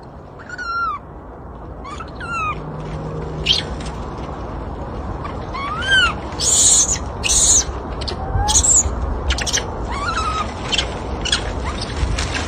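Infant macaque crying: repeated short, high-pitched calls that rise and fall, with louder, harsher shrieks about halfway through, over a low rumble.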